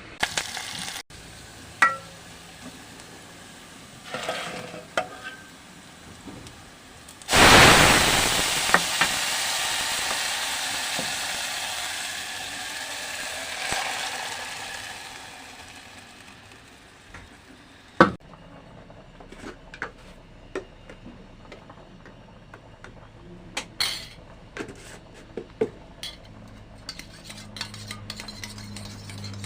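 Food going into hot oil in a pan: a sudden loud sizzle about seven seconds in that slowly dies down over several seconds. A metal utensil clinks and scrapes against the pan before and after.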